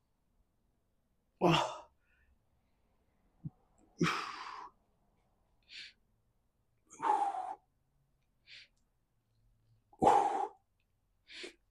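A man's forceful breaths out, one with each seated dumbbell lateral raise, about every three seconds, with shorter, fainter breaths in between.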